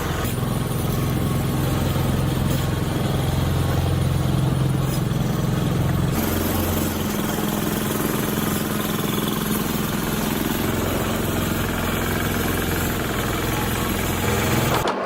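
Engine of a firewood splitting machine running steadily, with a few sharp knocks in the first seconds. About six seconds in, the machine sound changes to a different steady running note.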